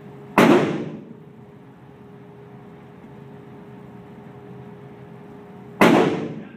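Two pistol shots on an indoor range, about five and a half seconds apart, each a sharp crack with a short echo off the range walls, over the steady hum of the range ventilation.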